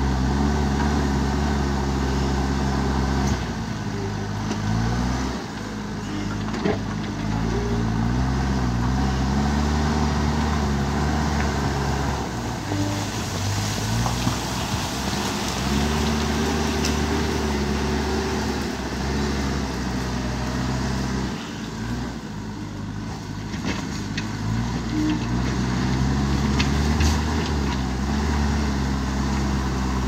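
JCB 3DX backhoe loader's diesel engine working under load as the front bucket pushes dirt, its note rising and falling several times as the machine loads up and eases off.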